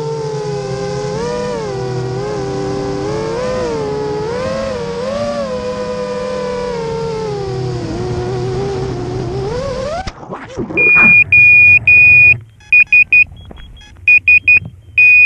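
FPV quadcopter's electric motors whining, the pitch swelling up and down with the throttle, then rising sharply and cutting off about ten seconds in. A loud high-pitched beeper then sounds in long and short beeps, typical of a drone's buzzer once the motors stop.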